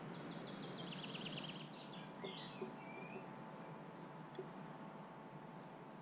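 A small songbird singing: a fast run of high, quickly repeated notes for about two seconds, ending in a short flourish, over steady outdoor background noise.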